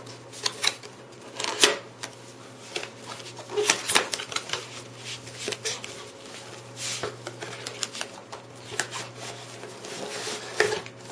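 Cardboard retail box opened by hand: the inner box slides out of its sleeve and the flaps fold open, with irregular scrapes, taps and knocks of card.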